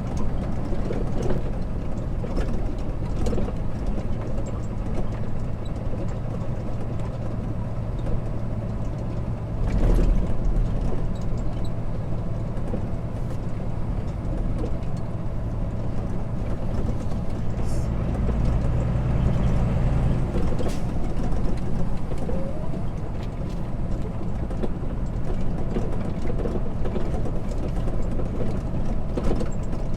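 Heavy diesel engine running steadily, with a thump about ten seconds in and a stronger, deeper stretch of engine sound around eighteen to twenty seconds in.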